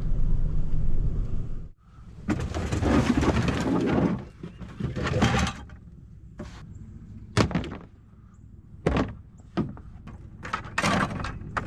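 A vehicle engine rumbling low stops abruptly after about a second and a half. Then comes a rustling stretch and a series of sharp knocks and thuds, like a vehicle door and gear being handled.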